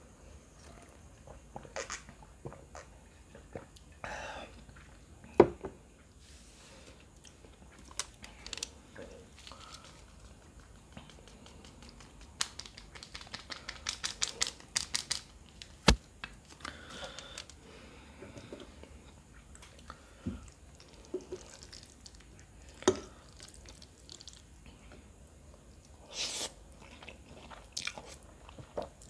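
Close-miked eating: chewing and biting with scattered sharp clicks, and a run of rapid crinkling around the middle as a foil packet is handled.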